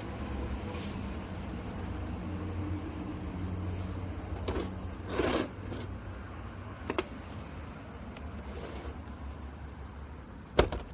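Hard plastic tool case being handled, turned over and opened: a few clicks and scrapes, then one sharp plastic knock near the end, over a steady low background rumble.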